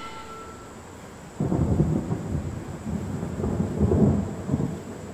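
Thunder rumbling, starting suddenly about a second and a half in and rolling on, with a second louder swell near four seconds. Beforehand, metal wind chime tones ring out and fade in the first second.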